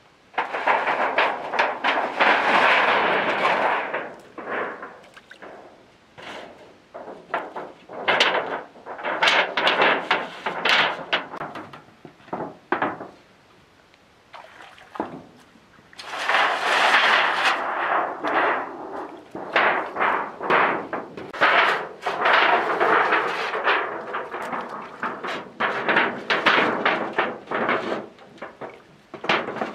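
Thin metal sheets being handled and bent into place: bouts of clattering, buckling knocks and wobbling rattle, some running on for a couple of seconds, with quiet pauses between.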